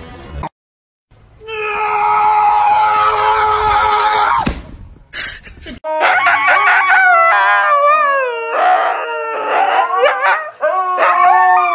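Husky howling: a long, nearly steady howl, then a string of wavering howls that slide up and down in pitch.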